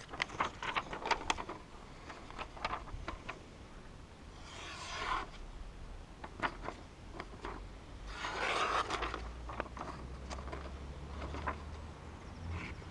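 A sheet of paper crinkling in the hands and being sliced by a Scandinavian-grind knife to test its freshly touched-up edge. Scattered crackles and clicks, with two longer rasping swishes about five and eight and a half seconds in.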